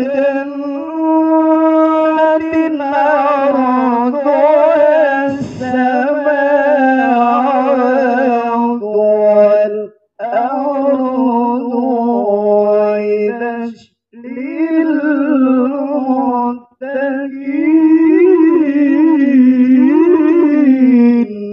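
A male qari chants a melodic Quran recitation (tilawah) into a handheld microphone. He sings long, ornamented held phrases and pauses briefly for breath three times.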